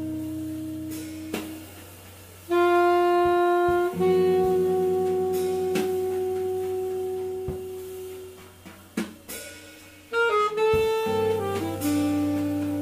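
Alto saxophone playing long held notes in a live jazz trio, then a quick run of falling notes near the end, over sustained low guitar notes and sparse drum and cymbal strokes.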